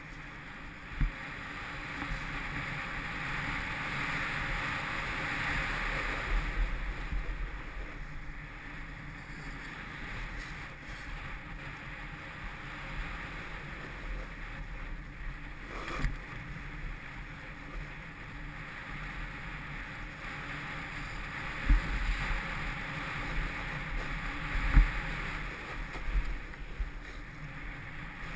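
Snowboard sliding down a groomed run: the board's base and edges hiss and scrape over the snow, swelling and easing with the turns, mixed with wind on the microphone. A few low thumps from bumps in the snow, the loudest near the end.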